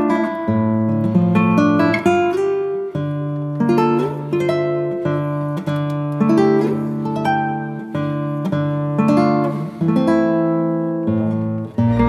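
Background music: an acoustic guitar plucking a melody and strummed chords over held bass notes.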